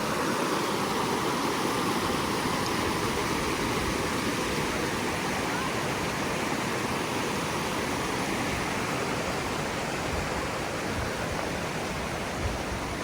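Steady rush of a wide creek's flowing water, easing off slightly near the end.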